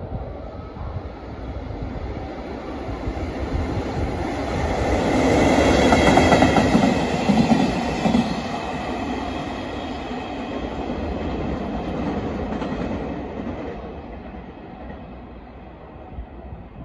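JR Freight EF65 electric locomotive hauling an engineering train of flat wagons past, its wheels clattering over the rail joints. The noise builds to its loudest about six seconds in, then fades as the train draws away.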